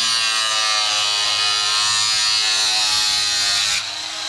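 Small Bauer right angle grinder cutting through a plastic light housing, the disc melting more than cutting the plastic. The motor's pitch sags under load and then climbs back, and the cutting hiss stops near the end while the motor keeps spinning.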